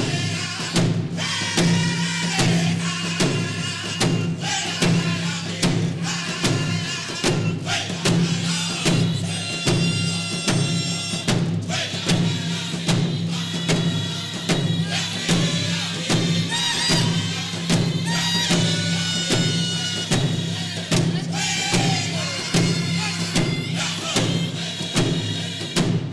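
Hand drum song: a group of men singing together over a steady, even beat on rawhide hand drums.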